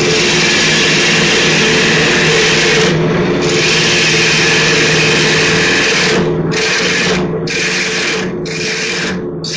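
Wood lathe running with a steady hum while a bowl gouge cuts the spinning wood blank, a loud continuous shaving noise. It pauses briefly after about three seconds, and after about six seconds the cuts come as four short passes in quick succession.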